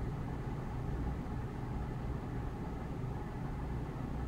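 Steady low-pitched room hum, even throughout, with no distinct events.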